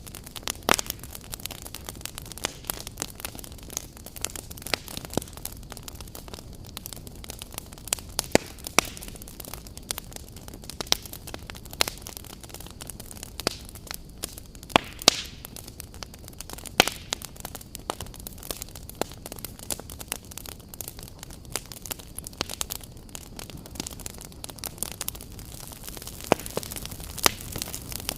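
Wood campfire burning: a steady low rush of flame with frequent irregular crackles and sharp snaps, a few louder pops among them.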